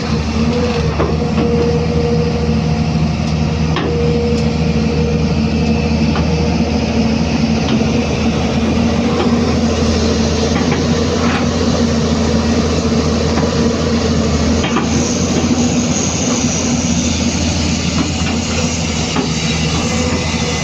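Hyundai 215 hydraulic excavator's diesel engine running steadily under working load, with scattered knocks and clanks. The engine note shifts about six seconds in and again near fifteen seconds.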